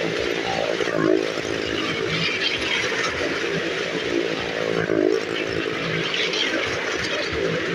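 Motorcycle engine revving repeatedly, its pitch rising and falling about every second and a half.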